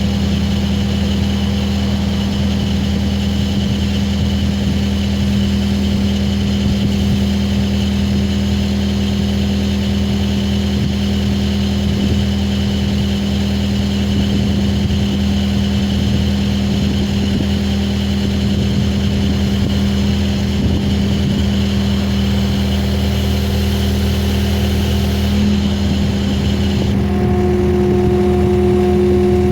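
Skid steer's diesel engine running steadily at idle. Near the end a higher whine joins and the sound gets slightly louder.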